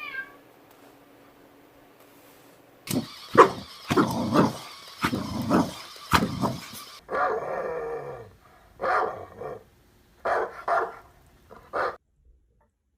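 Dog barking and growling in a run of short, loud bursts, starting about three seconds in and stopping shortly before the end.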